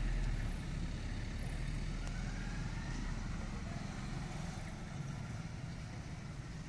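Light road traffic: motorcycles riding past. The loudest one fades about half a second in, leaving a steady low engine hum.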